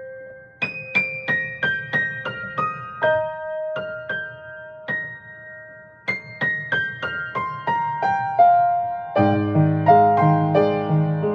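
Solo piano playing a gentle melody in two falling runs of single notes. About nine seconds in, fuller chords with a repeating bass line come in.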